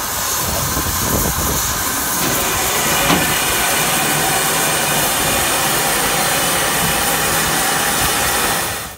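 Standing steam locomotive hissing steam loudly and steadily; the hiss cuts off suddenly near the end.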